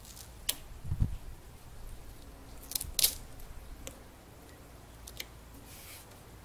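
Duct tape being pulled off the roll and pressed onto a fender flare: a few short, sharp rips and crackles, loudest about three seconds in, with a dull thump about a second in.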